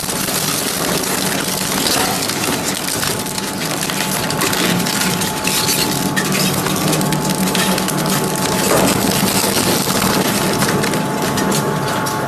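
Industrial shredding machine crushing material, a dense, continuous crackling and splintering over the steady hum of its motor.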